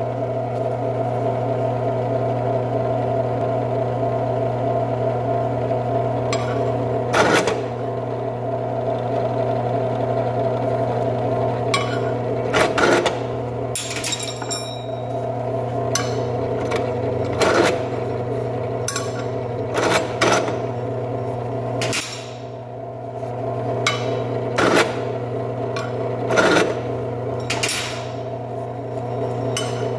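Small bench drill press motor running steadily, with about eight short scraping cuts spaced a few seconds apart as a larger drill bit chamfers the edges of drilled holes in metal bar parts to deburr them. A few of the cuts come with quick metallic clinks.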